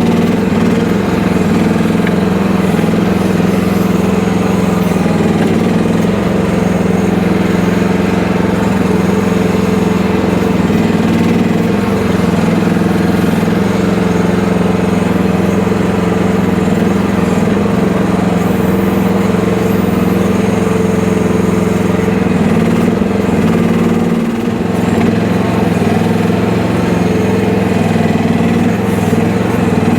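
FF12 mini excavator's small engine running steadily throughout, with a brief dip in level and pitch about three-quarters of the way through.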